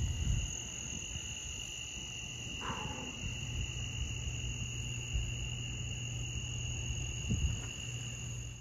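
Night insect chorus with a steady high-pitched ringing and a single short frog call about three seconds in, over a steady low hum.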